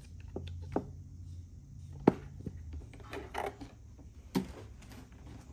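Hands handling a JBL PartyBox Encore portable speaker: a few sharp plastic clicks and knocks from its casing and rear port cover, the loudest about two seconds in, with rubbing and shuffling between them.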